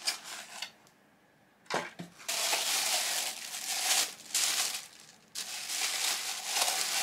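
A few light knocks, then a plastic bag crinkling and rustling as a ceramic mug wrapped in it is pulled out of its foam packing, with a short break in the rustling near the end.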